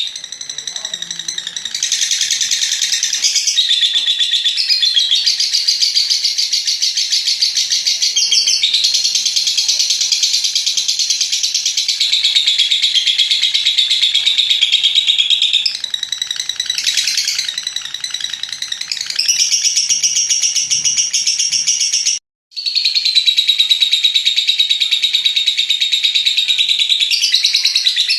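Lovebird's long, rapid, high-pitched chattering trill (ngekek panjang), going on in long unbroken stretches and cutting out briefly once about two-thirds of the way through.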